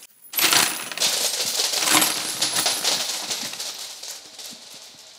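A shower of small metal washers landing on a tabletop: a dense clatter and jingle that starts abruptly, then thins out and fades over several seconds as the last ones settle.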